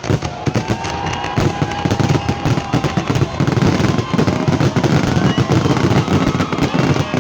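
Fireworks display: a rapid, continuous barrage of bangs and crackles.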